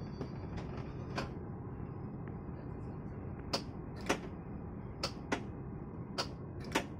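Sharp mechanical clicks, about ten of them at uneven intervals, from an Airbus A330-200 business-class lie-flat seat and its controls as the seat finishes converting from a flat bed back into a seat. Under them runs a steady low hum, and a faint high whine stops about half a second in.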